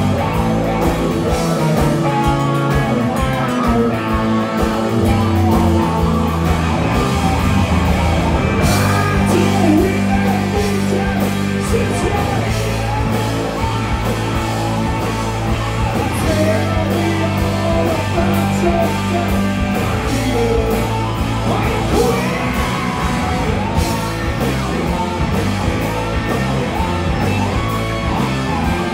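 Live rock band playing a song at full volume: electric guitar, electric bass, drums and keyboards, with a sung vocal in the mix.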